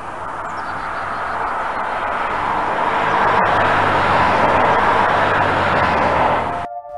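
Car driving sound effect: a steady rush of engine and road noise that swells gradually and cuts off abruptly near the end.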